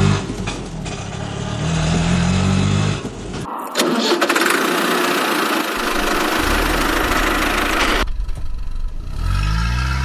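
Vehicle engine sounds spliced together. An engine runs low for the first few seconds. Then comes a stretch of steady loud hiss, and near the end an engine revs up with a rising pitch.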